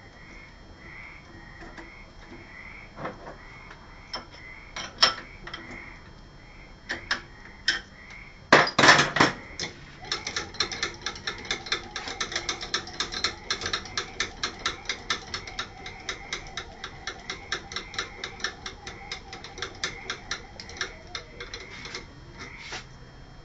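Metal handwheel on a BF20 milling machine's CNC axis drive being handled and fitted, with a few clicks and a loud clatter. It is then cranked round, giving a long run of even mechanical clicks, about four or five a second.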